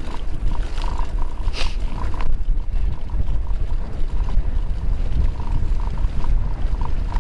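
Wind buffeting the microphone of a camera on a Calibre Bossnut mountain bike riding fast down a rough dirt track, over a steady rumble from the tyres and bike. Scattered light ticks and rattles come through, with a sharper rattle about a second and a half in.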